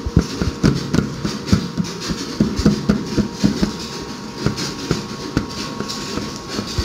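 Hands pressing and patting oiled roti canai dough flat on the back of an upturned stainless-steel tray, making a quick, irregular run of knocks and taps as the tray is worked. The knocks thin out after about four seconds.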